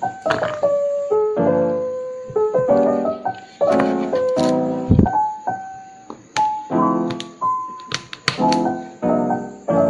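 Background piano music: a gentle melody of chords and single notes, each ringing out and fading.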